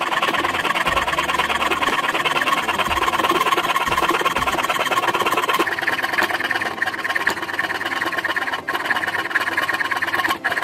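A small power tool running steadily with a fast, even rattle as it works the hole in a cast aluminium axe-head fitting.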